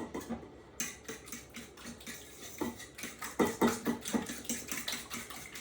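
A utensil clinking and scraping against a mixing bowl in quick, irregular light clicks as the egg, milk and Worcestershire mixture is stirred.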